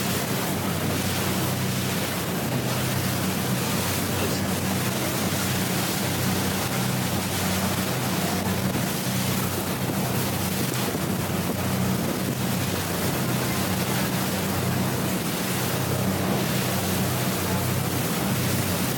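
Motorboat under way at steady speed: a constant low engine hum under the rush of water along the hull, with wind buffeting the microphone.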